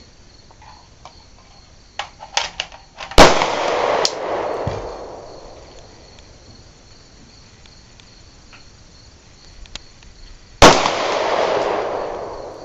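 Two gunshots about seven and a half seconds apart, each followed by a long rolling echo that fades over about two seconds. A few light clicks come shortly before the first shot.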